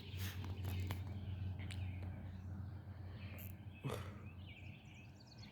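Faint, steady low drone of a distant crop-dusting airplane's engine, fading after the first couple of seconds, with birds chirping near the end.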